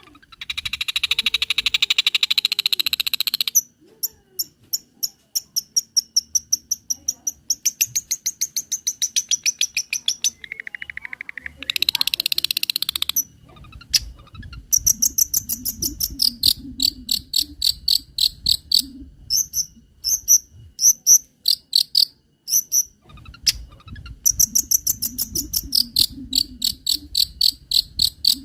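Long-tailed shrike (cendet) song packed with mimicked calls: a loud rapid buzzy trill near the start and again about halfway, between runs of fast, sharp repeated chirps.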